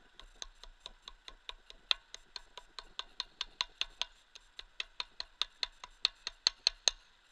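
Rapid regular clicking, about five clicks a second, as a magnet-fishing line is hauled up over a bridge railing. The clicks grow louder toward the end and stop just before the catch comes up.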